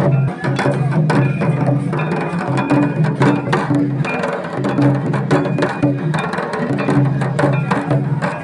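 Folk drumming on a two-headed barrel drum hung from the player's neck, dense quick strokes in a steady dance rhythm, with a low pitched tone that rises and falls with the beat.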